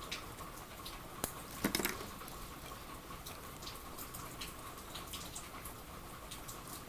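Steady hiss of rain with dripping drops and scattered light clicks. There is a short louder clatter about a second and a half in.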